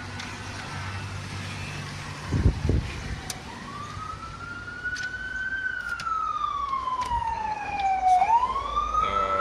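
A siren wailing, its pitch sliding slowly up, then down for a few seconds, then up again. A dull thump about two and a half seconds in.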